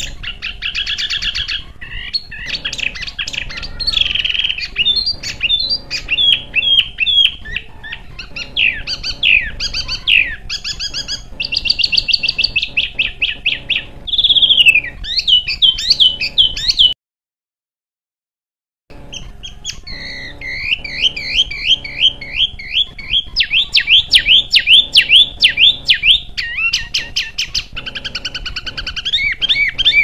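Recorded songbird song: fast runs of sharp, high-pitched repeated chirps and quick whistled glides. It breaks off into about two seconds of silence just past halfway, then picks up again with rapid repeated notes.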